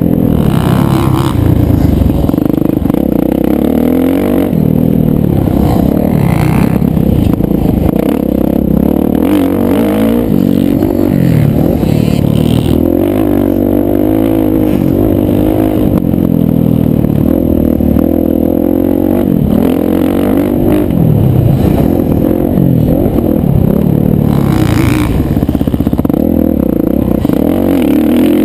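Kawasaki KX motocross bike's engine revving up and dropping back again and again as it is ridden hard around a dirt track, heard from the rider's helmet.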